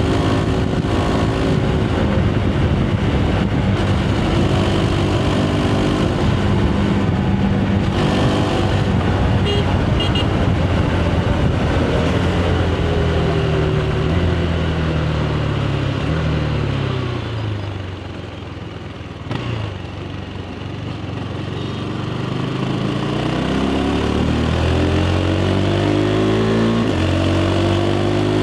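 KTM 390 Adventure's single-cylinder engine through its stock exhaust. It cruises steadily, then its pitch falls as the bike slows to a quieter, low-revving stretch about two thirds of the way in. After that it pulls away again, the pitch climbing in steps through the gears.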